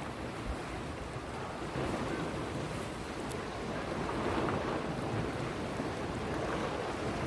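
Steady rushing noise of moving water, with wind buffeting the microphone.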